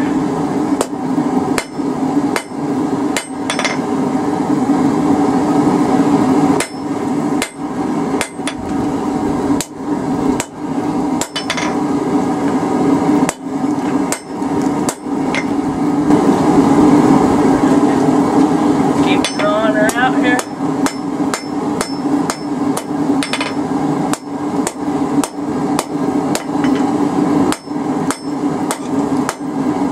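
Blacksmith's hand hammer striking a red-hot steel bar on an anvil, about two blows a second with short pauses, as the bar is forged thin. A steady low hum runs underneath the blows.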